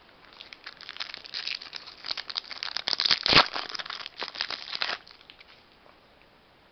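Wrapper of a 2020 Topps Opening Day baseball card pack being torn open and crinkled by hand: a run of crackling that peaks in one sharp rip a little past three seconds in and stops about five seconds in.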